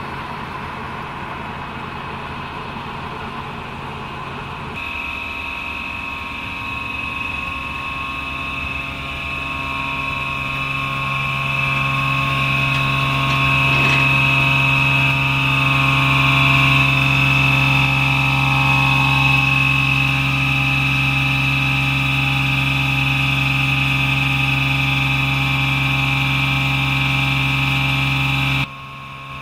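Roots rotary-lobe air blowers running steadily to supply aeration air for sewage treatment: a steady drone with a high whine on top, growing louder over the first dozen seconds and dropping suddenly near the end.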